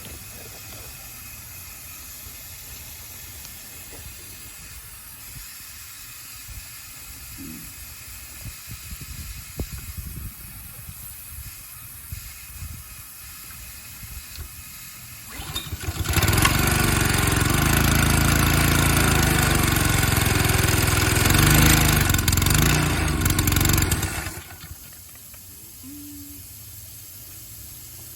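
Honda engine of a Kärcher G2600 VH pressure washer starting about 16 seconds in, running loudly for about eight seconds, then stopping. Before it, only a faint hiss with a few light knocks.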